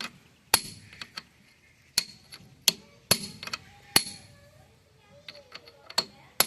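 Hammer blows on steel as the lock nut on a tractor's axle half-shaft is knocked loose: about six sharp, ringing metallic strikes at uneven intervals, with lighter taps between them.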